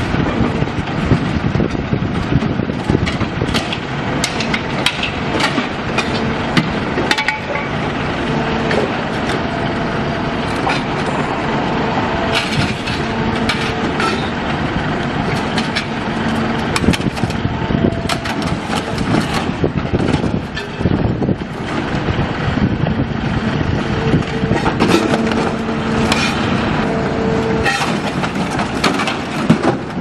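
Excavator with a hydraulic car-dismantling attachment working: its engine and hydraulics hum under load, coming and going, while metal is torn and crushed with repeated sharp cracks, crunches and clanks.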